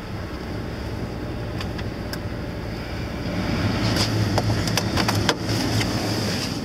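Dacia Logan MCV engine idling after a cold start in deep frost, heard from inside the cabin; it grows louder about three and a half seconds in. A few sharp clicks and knocks come a little later.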